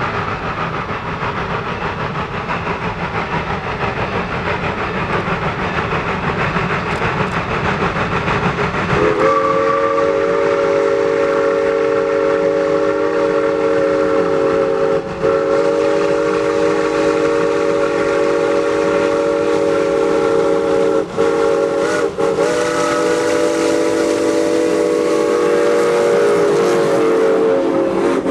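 Norfolk & Western M-class 4-8-0 steam locomotive approaching, its running noise a dense steady rush. About nine seconds in, its chime steam whistle sounds a chord of several notes, blown long, long, short, long: the grade-crossing signal. The whistle carries on until the train is passing close by.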